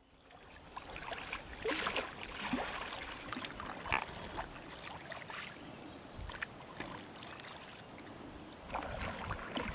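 Oars of a small inflatable dinghy dipping and splashing through the water as it is rowed, in irregular strokes over a steady wash of water noise, fading in from near silence at the start.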